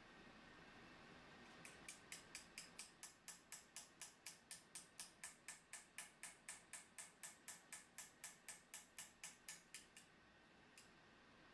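A small hammer tapping a steel chisel that cuts an engraving into a Japanese sword blade: light, even taps about four a second, starting about two seconds in and stopping near the end.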